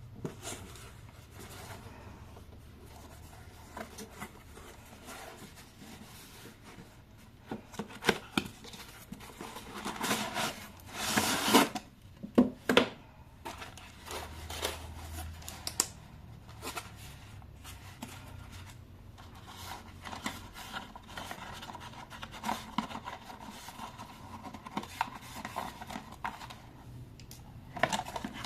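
Hands handling packaging and toys: rubbing, scraping and scattered clicks, with a louder burst of rustling and tearing about ten to twelve seconds in.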